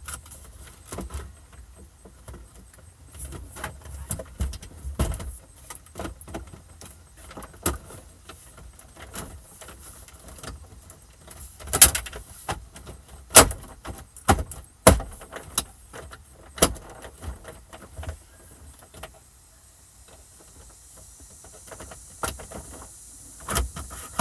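Scattered clicks, taps and knocks of hands fitting dashboard trim and small fasteners during a car stereo installation, with a few sharper knocks in the middle.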